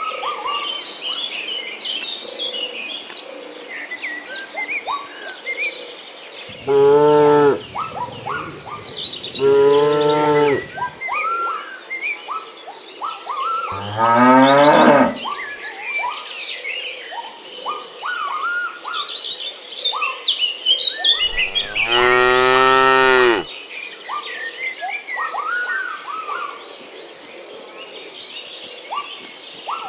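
Domestic cattle mooing, four calls about 1 to 2 seconds each; the third slides down in pitch and the last, near the end, is the longest. Short bird chirps and a steady high insect buzz run underneath.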